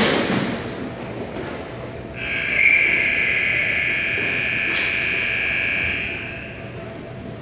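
A sharp knock, then a steady high-pitched horn or buzzer that sounds for about four seconds and stops.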